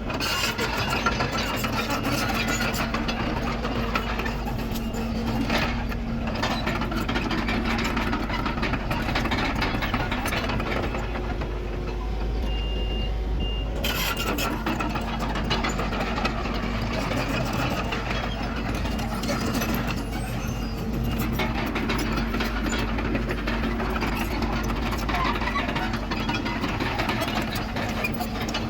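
Heavy diesel earthmoving machinery running steadily, with clicks and clatter throughout. About halfway through come two short high-pitched beeps like a reversing alarm.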